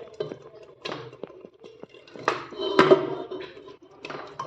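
Spoon knocking and scraping against a cooking pot as roasted chicken is stirred into gravy: about half a dozen sharp clinks, the loudest a little past the middle, over a faint steady hum.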